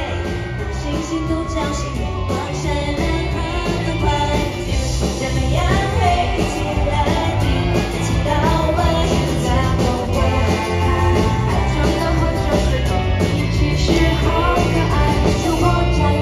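Live concert audio of a K-pop girl group singing into handheld microphones over a pop backing track with a steady bass beat, heard through the arena's sound system.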